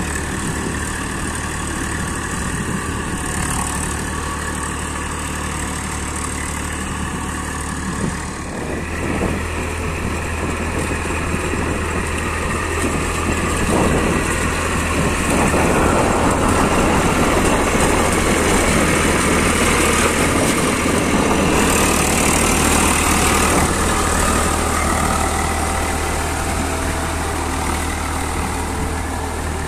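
Eicher 380 tractor's diesel engine running steadily as it works a rotavator through paddy mud on cage wheels, louder for a stretch in the middle.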